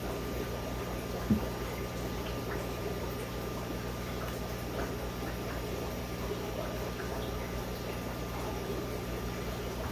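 Steady low electrical hum under a faint, even watery trickle, with one sharp light click about a second in and a few faint ticks.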